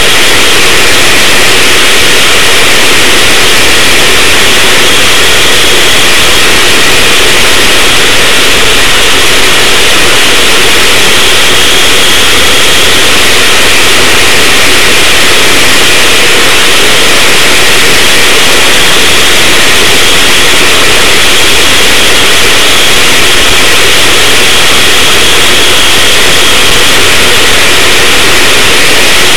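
Go-kart's small engine running steadily at speed, picked up by an on-board camera so loud that it is heavily distorted into an unbroken wall of noise.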